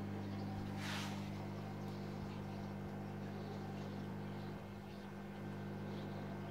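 Steady low hum of an aquarium's running pump and filter equipment, under a light hiss. A single brief soft swish comes about a second in.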